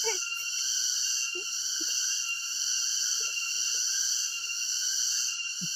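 Steady, high-pitched chorus of insects, with a few brief, faint voice sounds.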